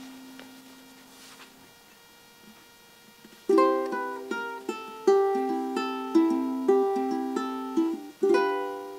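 Solo ukulele fingerpicked: a note fades out, then after a pause of about two seconds a quick phrase of plucked melody notes starts about midway, ending on a chord struck near the end that rings on.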